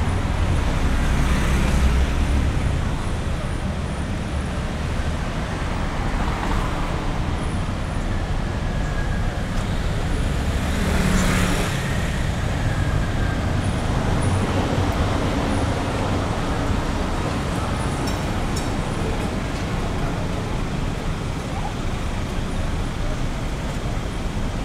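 City street traffic noise: a steady rumble of vehicles, with one vehicle passing close by about eleven seconds in.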